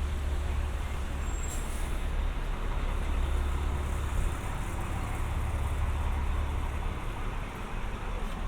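City street traffic: a steady low rumble and hiss of buses and cars passing on the avenue, with a brief high squeak about one and a half seconds in.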